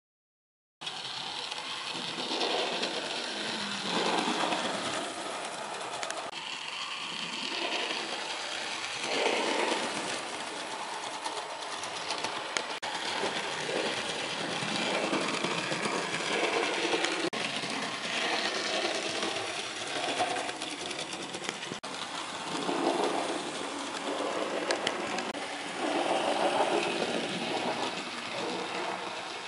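A 009-scale model locomotive running on the track: the small electric motor's whir with wheel and rail noise, swelling louder and fading several times as the train passes nearer and farther.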